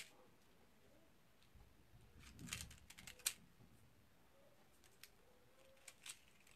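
Near silence with a few faint clicks and paper rustles from handling a small die-cut paper sentiment and a hand tool on a card. There is a cluster about two to three seconds in and a couple more near the end.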